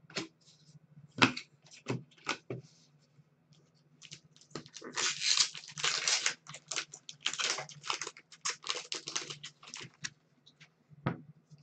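Trading cards and a card pack's wrapper being handled: a few sharp clicks in the first couple of seconds, then about six seconds of dense crinkling and rustling as the pack is opened. A low steady hum runs underneath.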